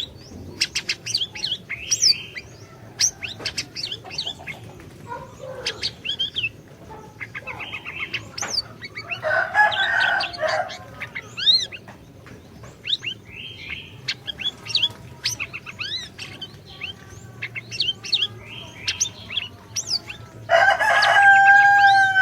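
Siri-siri songbird singing in a fast run of sharp chirps and sweeping whistled notes, with a harsher, louder call about ten seconds in. Near the end a rooster crows.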